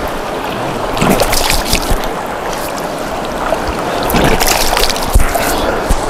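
Cold stream water running steadily, with hands scooping and splashing water in it several times during face and hand washing.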